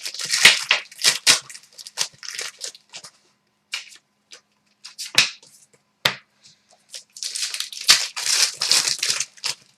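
Foil trading-card pack wrappers being torn and crinkled while cards are handled, in irregular rustling bursts, with two sharp clicks about a second apart near the middle.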